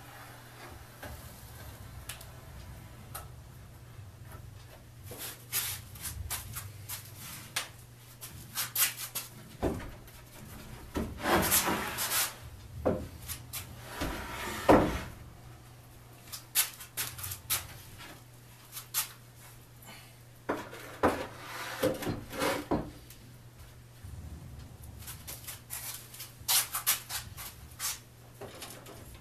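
Plywood board being handled and marked: scattered knocks and scraping rubs of wood against wood, with short pencil-like scratches, over a steady low hum.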